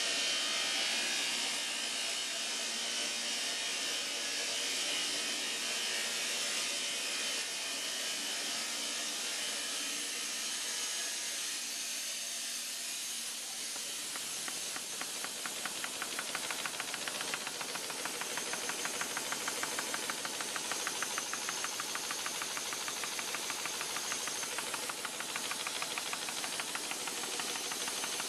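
Envelope machine with an upgraded feeder running: a steady hiss of machinery noise, with a fast, even mechanical clatter of the feed mechanism setting in about halfway through.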